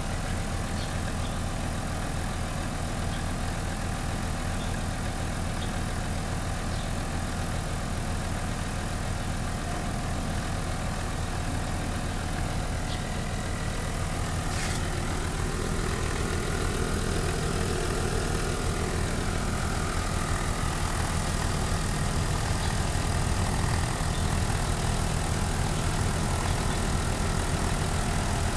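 Airford 12 V portable tire air compressor running steadily while inflating a car tire through a hose on the valve, with a fast, even pulse. It grows a little louder about halfway through.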